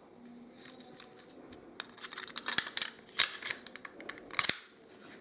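Zoraki M807 blank pistol being reassembled by hand: faint handling at first, then metal parts scraping and a few sharp clicks, loudest about halfway through and near the end, as the slide and other parts are slid and snapped back into place.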